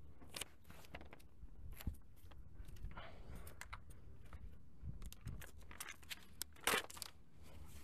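Paper and cardboard packaging being handled, giving scattered rustles and crinkles, with one louder crinkle about two-thirds of the way through.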